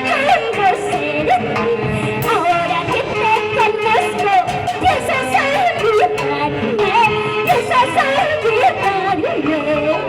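Instrumental huayno from Huancavelica played by a band: melody lines that slide and waver in pitch over a steady beat.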